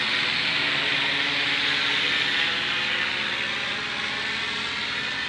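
Align T-Rex 600 electric RC helicopter in an MD500 scale body flying overhead: a steady whine and hiss from its rotors and drive, with several steady tones through it, growing slightly quieter in the last second or so.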